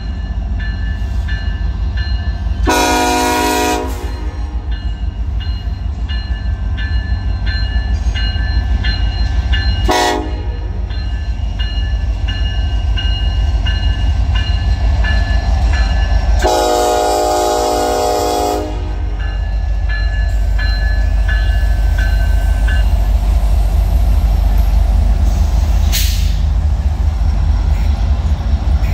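Norfolk Southern diesel freight locomotives passing with a steady engine rumble, sounding the horn three times: a blast about 3 s in, a short one near 10 s and a longer one near 17 s. A grade-crossing bell rings faintly under it.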